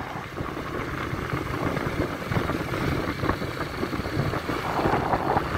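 Motorcycle engine running steadily as the bike rides along the road, heard from the bike itself, with road noise mixed in.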